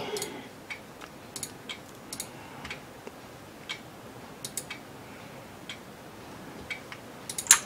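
Computer mouse clicking: scattered single clicks, with a quick run of louder clicks near the end.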